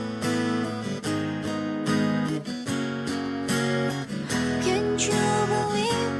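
Background music: an acoustic guitar strumming chords, changing chord about once a second, with a melody line coming in over it about halfway through.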